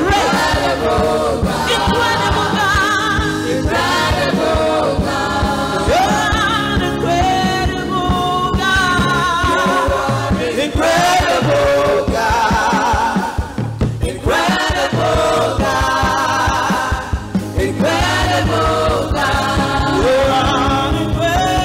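Live gospel praise music: lead and backing singers with wavering, vibrato-laden notes over a drum kit keeping a steady beat.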